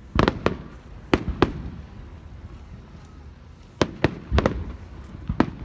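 Fireworks bursting: about ten sharp bangs in loose pairs and clusters, each with a short echoing tail.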